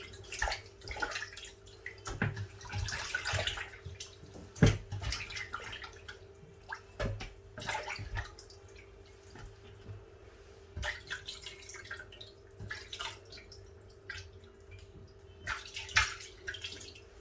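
Fish being washed by hand in a bowl of water: irregular splashing and dripping, with a sharp knock against the bowl a few seconds in, over a faint steady hum.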